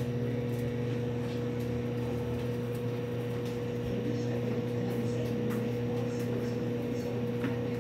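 Microwave oven running: a steady, even hum.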